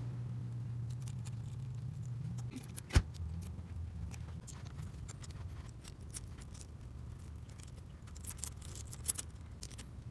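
Small metallic clicks and clinks of hand tools and hardware, with one sharp click about three seconds in and a flurry of quick clicks near the end. A low steady hum runs underneath for the first couple of seconds, then stops.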